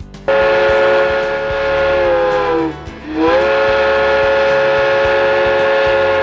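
Steam locomotive whistle sounding two long blasts, a chord of several tones, each sagging in pitch as it dies away; the second starts just after three seconds in.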